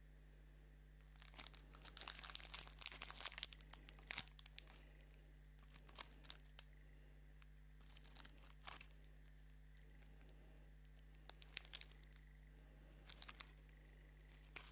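Wrapper of a chocolate wafer bar crinkling and rustling as the bar is handled and pulled apart by hand. A long stretch of crackling runs from about a second in to about four seconds, then shorter crinkles come every couple of seconds.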